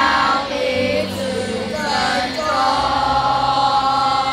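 A choir of children's voices singing together, holding long notes.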